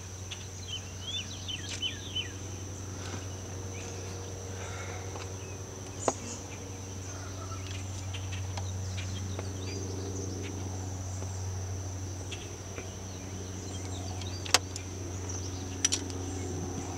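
Steady high-pitched drone of insects over a low steady hum, with a few sharp clicks from Phillips screws and plastic dash trim being worked loose.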